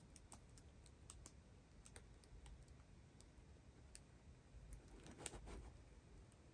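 Near silence with faint handling noise: scattered light clicks and a brief soft rustle about five seconds in, from a diamond painting canvas being held and moved.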